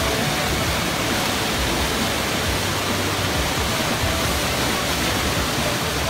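Small waterfall cascading down a rock channel: a steady, even rush of water.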